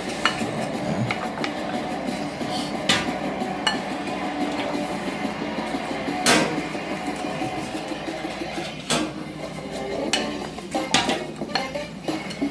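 Wooden spoon scraping and knocking against a ceramic bowl and an enamelware roasting pan as minced garlic is pushed into the pan: irregular clinks and knocks, the loudest about six seconds in, with a cluster of quicker ones near the end.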